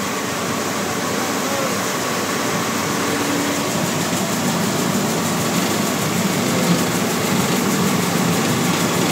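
Rice mill machinery running steadily, a continuous mechanical din.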